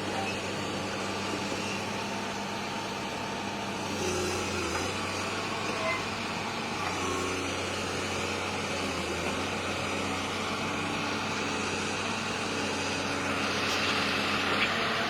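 Heavy diesel engine running steadily at a constant speed, an even low hum with mechanical noise over it.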